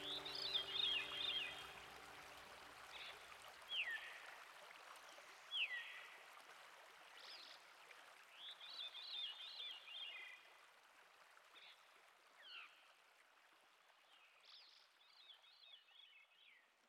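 A songbird calling over and over, quick descending whistles and short warbled phrases every second or two, over a faint steady rush of river water. The whole sound gradually fades away toward the end.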